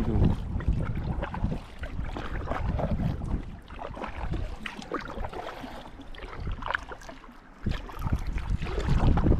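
Water splashing and lapping around a kayak, with irregular small knocks and clicks on the hull and gear. Wind buffets the microphone in uneven low rumbles.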